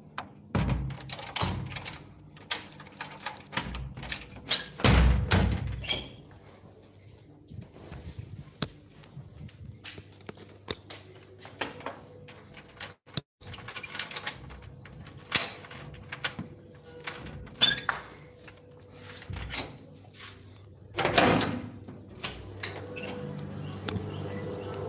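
Handling noise on a smartphone's microphone: a string of knocks, taps and rubs as the phone is moved about. The loudest clusters come about five seconds in and again about twenty-one seconds in.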